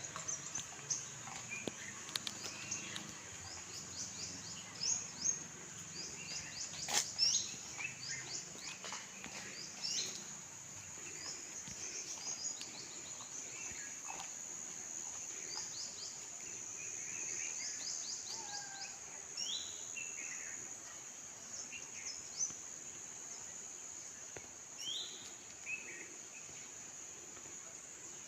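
Birds chirping repeatedly in short calls over a steady, high-pitched insect drone, with a few sharp clicks in the first ten seconds.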